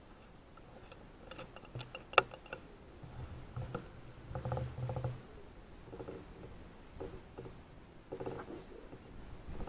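Handling noise from a scoped rifle with a scope-mounted camera: scattered small clicks, knocks and rustles as the scope is panned, with one sharp click about two seconds in and some dull thumps a little later.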